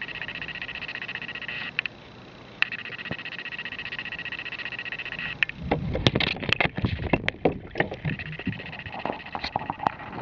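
Water splashing and sloshing in a minnow bucket as a cat paws into it, a couple of seconds of splashes and sharp knocks about halfway through. Before and after, a steady high-pitched whine, which drops out briefly about two seconds in.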